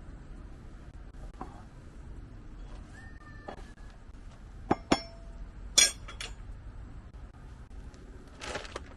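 Hard objects clinking and knocking: a handful of sharp clinks about halfway through, two of them ringing briefly, then a short rustle near the end.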